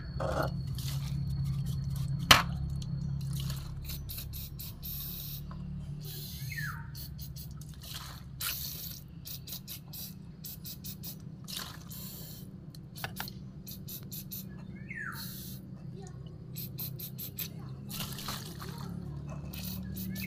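Aerosol contact cleaner sprayed in many short hisses of varying length onto a toy RC bulldozer's electric drive motor and gearbox, cleaning a drive that won't run. A sharp click about two seconds in.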